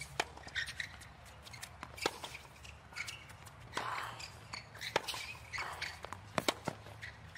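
Tennis rally on a hard court: sharp pops of racket strings hitting the ball and the ball bouncing, about a second or two apart, with players' footsteps and shoe scuffs between shots.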